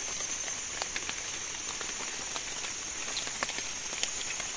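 Tropical forest ambience: a steady high-pitched insect drone over an even hiss, with scattered light ticks.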